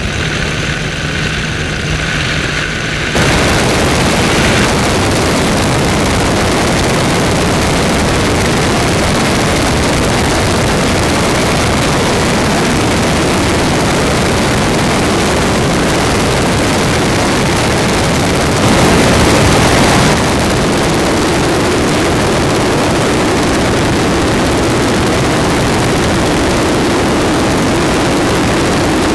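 Boeing F4B-2 replica biplane in flight, heard from cameras on the airframe. For about three seconds there is a steady engine-and-propeller drone. After that comes a loud, even roar of engine and rushing air over a wing-mounted camera, briefly louder about two-thirds of the way through.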